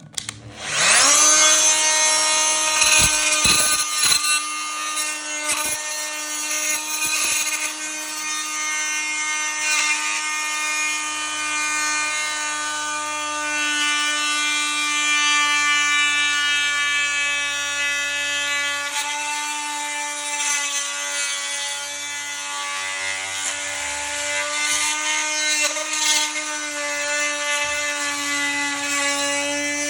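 Core drill starting up and boring through the wall for a waste pipe: a steady motor whine that rises to speed about half a second in, its pitch dipping slightly now and then as the bit bites.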